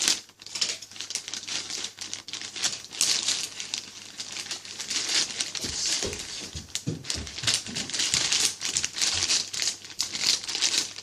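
Packaging being handled and unwrapped: steady crinkling and rustling with many small clicks.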